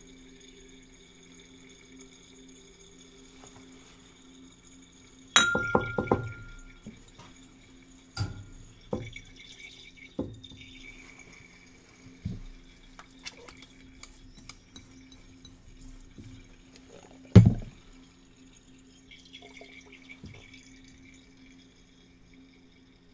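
Glassware clinking as a glass titration flask is handled under the burette: a quick rattle of clinks with a brief ring about five seconds in, then scattered single knocks, the sharpest and loudest about three-quarters of the way through. A faint steady hum runs underneath.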